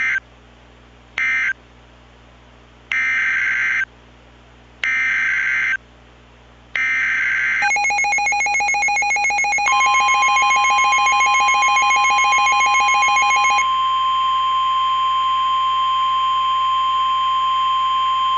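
Emergency Alert System tones: two short screeching SAME data bursts ending the previous alert, then three longer one-second SAME header bursts for the next alert. A pulsing, rattling attention alarm follows for about six seconds. About two seconds into it, the steady single-pitch NOAA Weather Radio warning alarm tone joins and carries on alone to the end.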